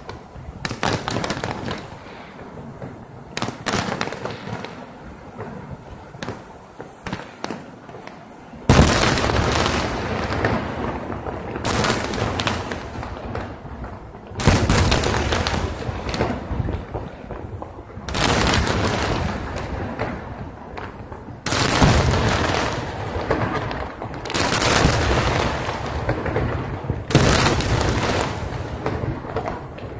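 Aerial firework shells bursting in a dense barrage. A lighter scatter of bangs comes first, then loud volleys of rapid bangs start suddenly about nine seconds in and again every few seconds.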